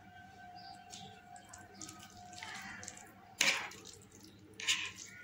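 Close-miked wet mouth sounds of a person eating instant masala noodles, chewing and slurping, with a loud wet slurp about halfway through and another near the end.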